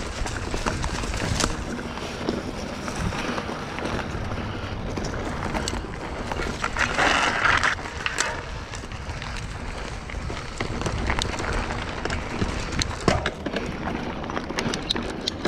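Mountain bike rolling fast down a dirt trail, picked up by a GoPro: steady tyre rumble and wind on the microphone, with frequent sharp clicks and rattles of the bike over rough ground. A brief louder scraping hiss comes about seven seconds in.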